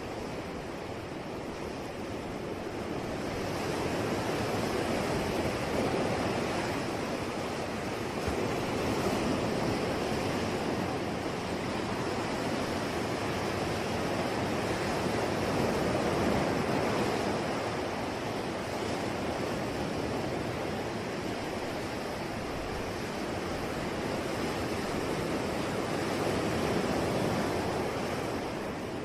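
Ocean waves breaking and washing on the shore, a steady surf that swells and eases slowly every several seconds.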